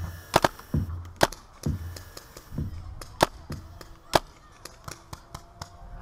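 Paintball markers firing: a handful of sharp, loud pops in the first four seconds, then a quicker run of fainter pops near the end. A low thump about once a second runs under the first few seconds and then stops.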